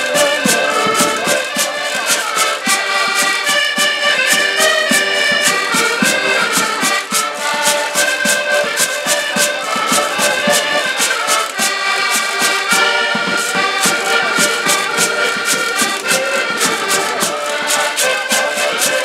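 Several accordions playing a lively traditional folk tune together over a steady, fast drum beat.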